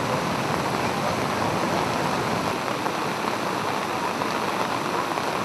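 Muddy floodwater rushing steadily through a swollen stream.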